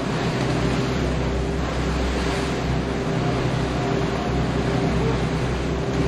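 1999 Carver 504 motor yacht running under way into lake swells: a steady engine drone under wind and the rush of water thrown off the bow.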